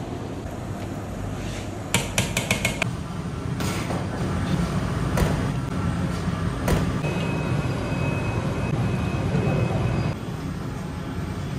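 Commercial kitchen noise: a steady low rumble, with a quick run of about six metal clinks that ring briefly about two seconds in and a few single knocks after. A faint high steady tone sounds for a few seconds past the middle.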